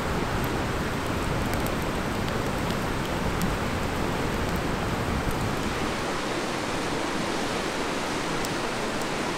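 Steady rushing of a mountain stream, with a few faint, sharp crackles from a wood campfire scattered through it.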